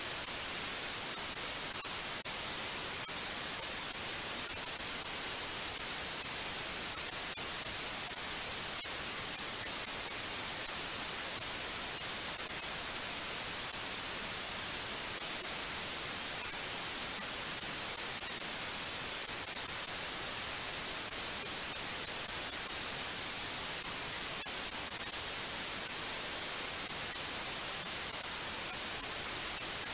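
Steady, unchanging white noise: an even hiss, strongest in the high frequencies.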